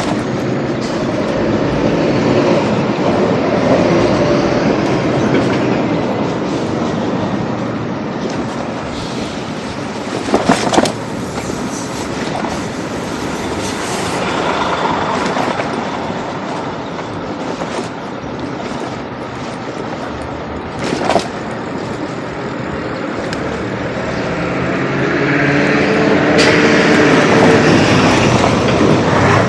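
Train running on rail tracks: a steady loud rumble with a droning tone near the start and again near the end, and brief clatters about 11 and 21 seconds in.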